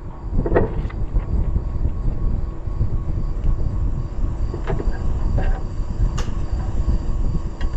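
A loud, uneven low rumble runs throughout, with a few sharp clicks and taps of hand work on tractor wiring. Crickets chirp faintly and steadily in the background.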